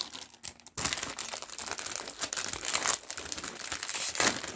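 Plastic packaging being handled and opened, crinkling and crackling continuously, with a few clicks at first and some tearing.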